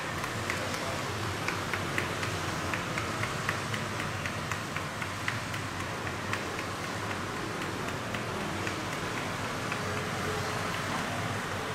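Steady street background noise with scattered light clicks and ticks.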